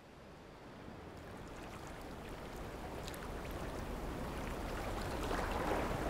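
Water running over rocks in a shallow stream, a steady rushing that fades in gradually from silence and grows louder.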